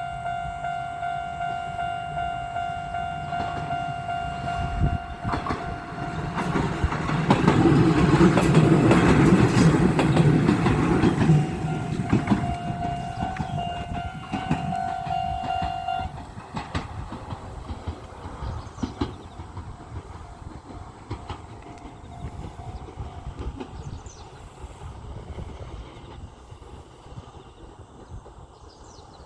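Level crossing warning signal ringing steadily while a train passes over the crossing, its wheels rumbling and clacking loudest about a quarter to a third of the way in, then fading away. The crossing signal cuts off a little past halfway, leaving the train's sound dying out.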